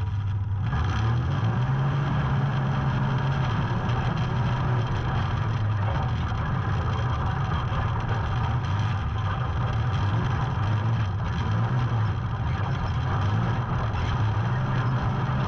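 A vehicle engine running steadily at a low, even speed, its pitch wavering only slightly.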